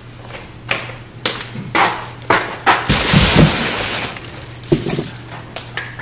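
Thin plastic grocery bag rustling and crinkling as groceries, a net bag of onions among them, are pulled out, loudest and densest about three seconds in. A couple of short knocks follow as things are set down.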